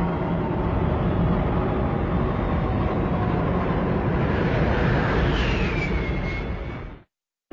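Super Mechagodzilla sound effect: a steady, dense mechanical rumble, with a falling whine about five and a half seconds in. It cuts off abruptly near the end.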